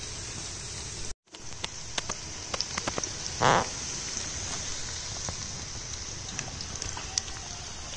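Onions and green chillies frying in oil in a large aluminium pot over a wood fire: a steady sizzle with many small pops and crackles. There is a brief dropout to silence just after the first second, and a short louder sound about three and a half seconds in.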